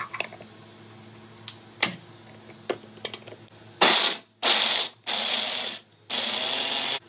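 Plastic clicks and knocks as the lid and motor top of an electric mini chopper are fitted, then the chopper's motor runs in four short pulses of about half a second to a second each, mincing carrot.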